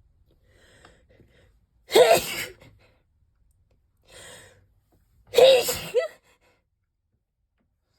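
A person sneezing twice, the sneezes about three seconds apart, each a sudden loud burst with a short voiced tail. Soft breathing comes before the first sneeze, and a quick breath in comes before the second.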